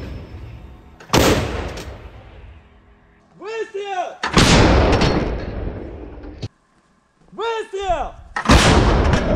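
152-mm Giatsint-B (Hyacinth-B) towed gun firing three rounds: a sharp blast about a second in, a louder one about four seconds in, and another near the end, each followed by a long fading rumble.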